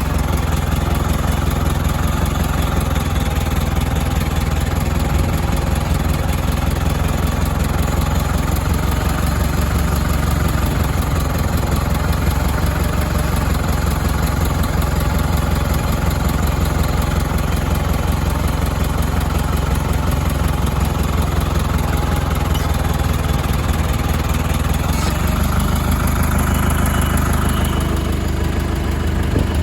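Ford 6640 farm tractor's diesel engine running steadily at a constant speed.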